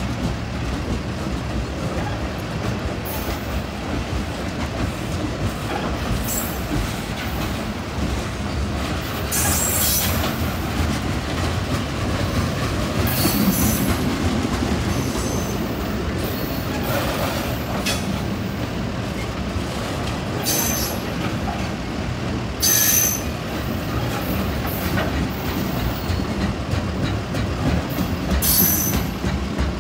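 Loaded open-top hopper cars of a freight train rolling past at close range, with a steady rumble of steel wheels on the rail. Brief high-pitched wheel squeals break in about half a dozen times.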